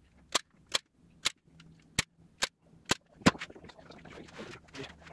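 Hand staple gun driving staples through upholstery fabric into a chair frame: seven sharp snaps about half a second apart, the last one the loudest. The fabric then rustles as it is pulled taut.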